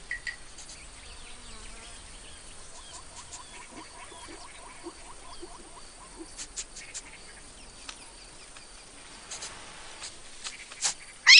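Savanna insect ambience: a steady faint buzzing and chirping of insects, with a quick run of short chirps a few seconds in and scattered small clicks. Right at the end a sudden loud sound climbs steeply in pitch.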